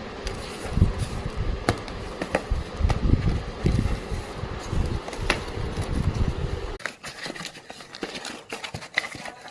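Handling noise of a package being opened: scattered clicks and crinkly rustles, with heavy low rumbling thumps until about seven seconds in, after which only the lighter clicks and rustles go on.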